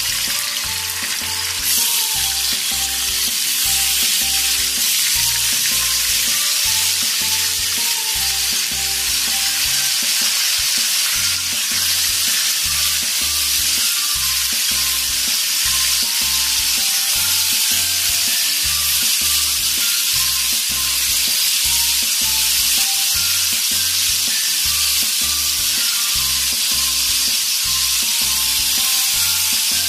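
Marinated chicken pieces frying in hot oil in a wok, a steady sizzle throughout. Background music with a bass line plays underneath.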